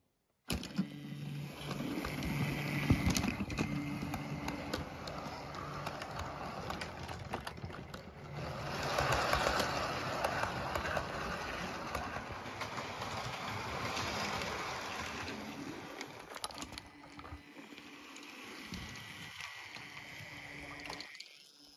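Model railway 4F steam locomotive and its coaches running along the track: a steady motor hum with wheel clicks on the rails. It grows loudest as the train passes close about eight seconds in, then fades.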